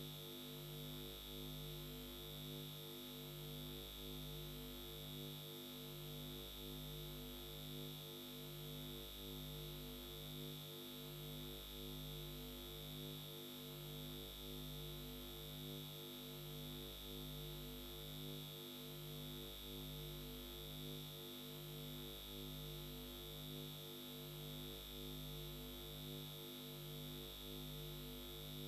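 Faint, steady electronic drone like a synthesizer pad, pulsing slowly and evenly, with a constant thin high tone over it.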